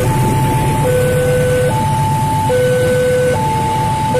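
Electronic level-crossing warning alarm sounding a two-tone hi-lo pattern, each tone held a little under a second, over the steady low noise of a freight train rolling past.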